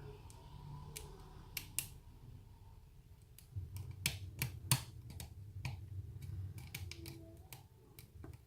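Lock pick and tension wrench working the pins of a pin-tumbler challenge lock: scattered small sharp clicks from the serrated pins and the core, more frequent from about three and a half seconds in, over a low handling rumble.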